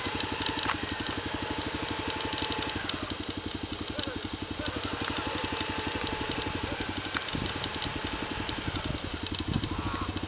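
A vehicle engine idling close by, a fast, even low putter that holds steady throughout, with faint chirps near the end.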